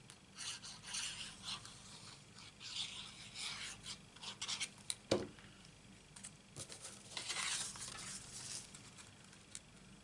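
Paper and card stock rustling and rubbing as they are handled and slid against each other, in irregular swishes with a couple of sharp taps about halfway through.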